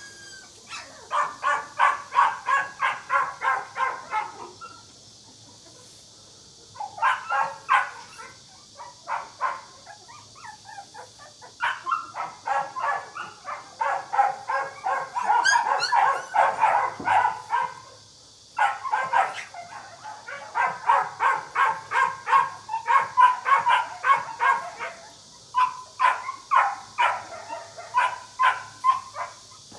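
Young puppies, about twenty days old, yelping and squealing in rapid, high-pitched cries, several a second. The cries come in bouts with short pauses between them.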